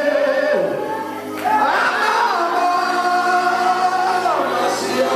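Worship music with singing: long held notes that slide between pitches.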